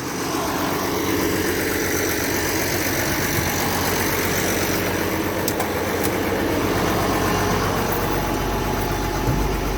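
Farm tractor engine running steadily, its low rumble growing stronger in the second half.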